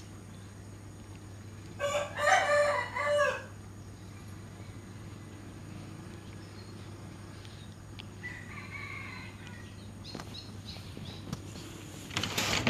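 A rooster crowing once, about two seconds in, with a fainter call around eight seconds in. A steady low hum runs underneath.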